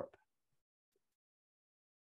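Near silence, with no background noise.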